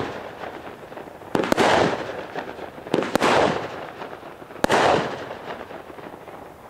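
Consumer fireworks from a firework cake assortment going off: three sharp bangs about one and a half seconds apart, each followed by a fading hiss, then dying away.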